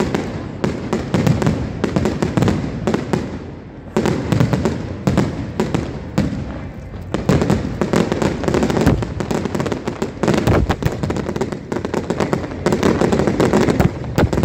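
Fireworks display: a dense, continuous barrage of aerial shell bangs and crackle, easing briefly about four seconds in and again around seven seconds before building up again.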